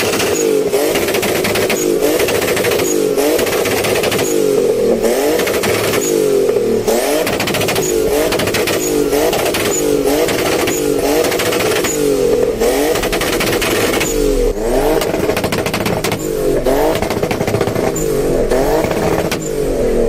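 Turbocharged engine of a modified BMW E30 revved hard again and again, its pitch rising and falling about once a second, with sharp cracks between the revs.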